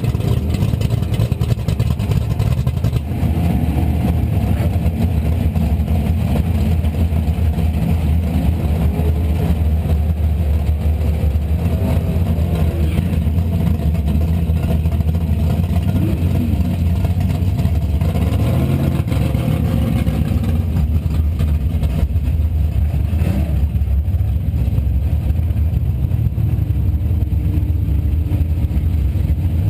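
Vehicle's engine and exhaust idling, heard from a camera mounted under the car by the rear axle: a steady low drone.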